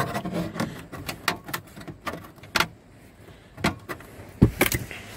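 Irregular plastic clicks, knocks and rattles of a Ford Windstar's lower dashboard trim panel being tugged and worked loose, its retaining clips stuck so it is hung up; the loudest knocks come about four and a half seconds in.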